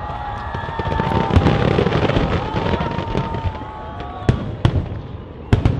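Aerial fireworks shells bursting: a dense run of crackling and popping from about a second in, then several sharp bangs near the end.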